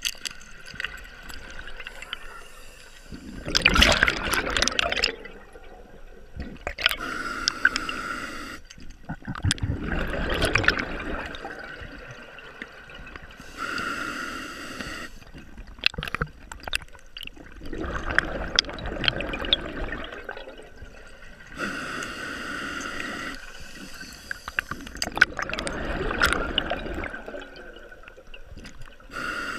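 Scuba diver breathing through a regulator underwater: a hissing inhale, then a gurgling rush of exhaled bubbles, about four breaths in a slow, even rhythm.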